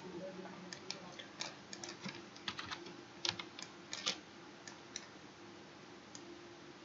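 Computer keyboard and mouse clicking: irregular single clicks and short clusters of clicks, over a faint steady hum.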